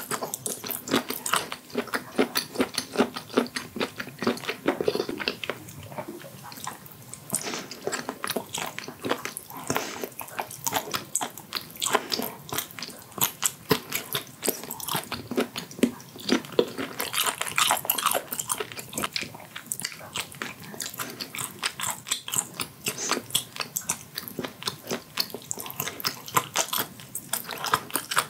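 Close-miked biting and chewing of blanched octopus tentacles: a dense, uneven run of short mouth clicks and smacks, several a second.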